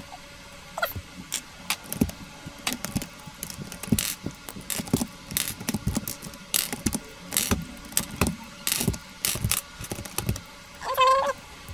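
Plastic keycaps being pulled one by one off the switches of a Machenike K600 keyboard: irregular sharp clicks and snaps, a few each second. A short pitched sound comes near the end.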